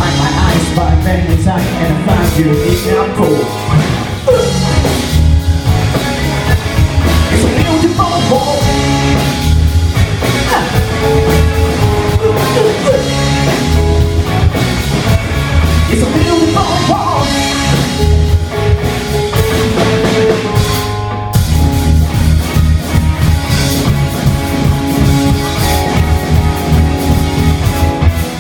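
Live rock band playing a song: a drum kit keeping a steady beat under guitars and bass, with a singer's voice over the top.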